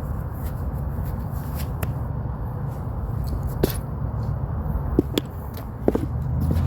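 Sheet-metal clanks and knocks as the top panel of an AC condenser unit is handled and set back in place: a few sharp metallic hits in the second half, over a steady low rumble.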